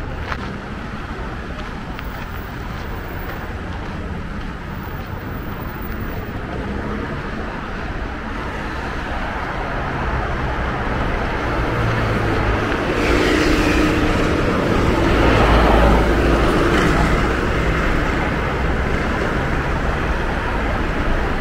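City street traffic: a steady wash of passing cars and other road vehicles. It grows louder through the second half and is loudest about three-quarters through, with a deep low rumble.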